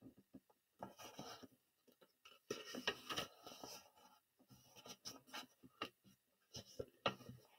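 Faint rustling and rubbing of paper as a picture book's page is turned and a hand presses the pages flat, with a few soft clicks in between.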